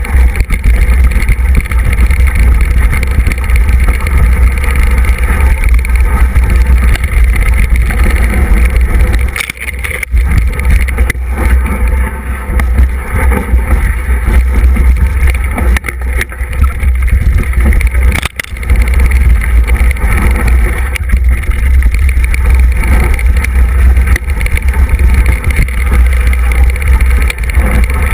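Wind rumble on a bike-mounted action camera's microphone as a mountain bike rides down a rocky dirt trail, with the bike rattling and knocking over stones. It dips briefly about ten and eighteen seconds in.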